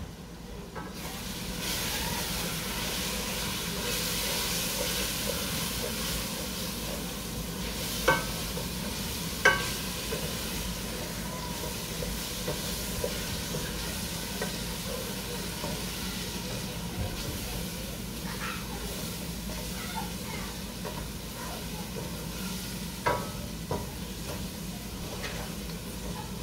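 Ground spices (turmeric, red chili, coriander) sizzling in a stainless steel pot while being stirred with a wooden spatula. The frying hiss rises about a second or two in and holds steady, with a few sharp knocks of the spatula against the pot.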